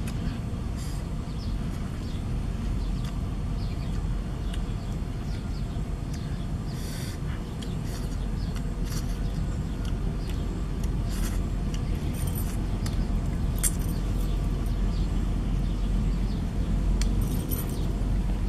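Steady low outdoor rumble with scattered small rustles and clicks.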